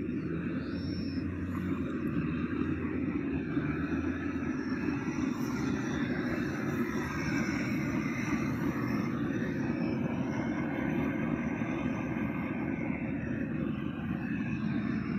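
Vintage stationary engine with large flywheels running steadily, a continuous low mechanical clatter.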